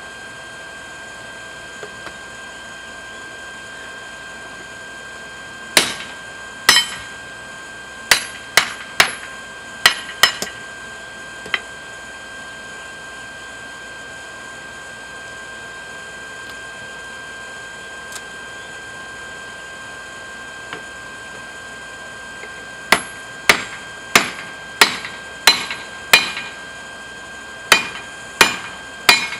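Hand hammer striking a hot claw hammer head on a steel-plate anvil, forging it down into a hatchet blade: a group of sharp, ringing blows about six seconds in, a long pause, then a steadier run of blows at about one to two a second near the end. A faint steady high tone runs underneath.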